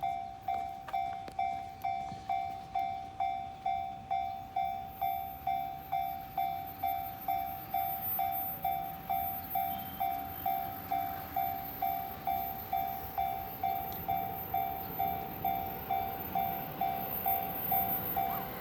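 Japanese railway level-crossing warning bell ringing steadily, about two strikes a second. A train's rumble grows underneath it in the second half.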